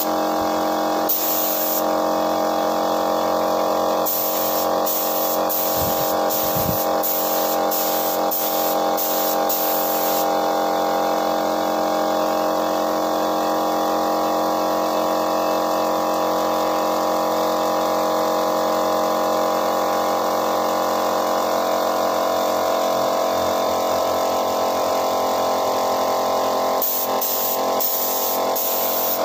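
Air compressor running with a steady hum, while a gravity-feed spray gun is triggered in short hissing bursts, a quick run of them from about four to ten seconds in and again near the end.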